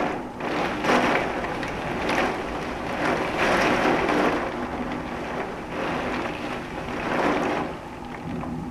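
Storm wind gusting with rain, swelling and easing every second or two, loudest about three and a half to four seconds in.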